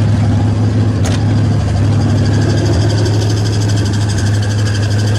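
Chevy K-10 pickup engine idling steadily, with a sharp click about a second in. From about two seconds in a faint high squeal comes up, which the owner takes for a squeaky belt.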